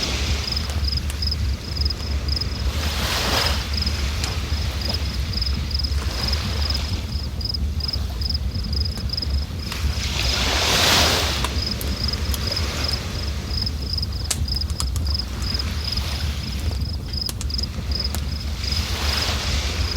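River water rushing steadily with a deep low rumble, rising in louder surges about every eight seconds, the strongest near the middle. A cricket chirps at an even pace throughout.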